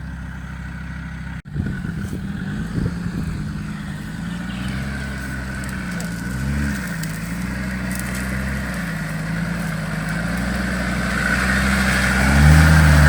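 Off-road 4x4's engine running at low revs, its pitch wavering up and down as it works over rough ground, then growing louder and revving higher near the end. A brief dropout about a second and a half in.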